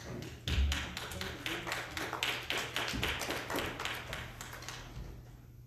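A group of people applauding: dense clapping that starts about half a second in and dies away near the end, with a low thump as it begins.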